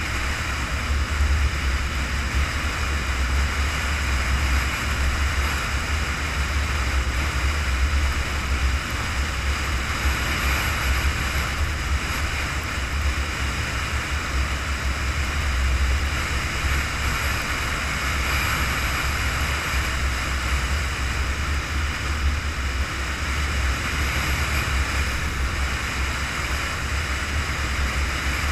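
A vehicle cruising at highway speed, heard from a camera mounted on its hood: a steady deep rumble of engine and tyres under a constant rush of wind on the microphone.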